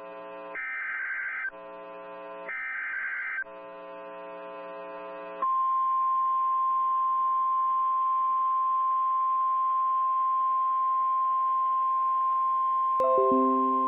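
NOAA Weather Radio Emergency Alert System activation: two screeching digital SAME header data bursts, each about a second long, alternating with a lower buzz. About five seconds in, the steady 1050 Hz Warning Alarm Tone takes over and holds, which signals that a warning is about to be read. There is a click near the end.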